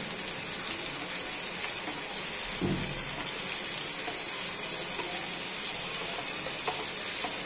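Kadhai chicken sizzling steadily in a non-stick pan, with chopped tomato just added on top. There is one brief low bump a little over two and a half seconds in.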